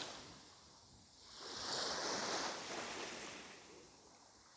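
Sea surf: one wave washing up the beach, a soft rushing that swells about a second in and fades away again near the end.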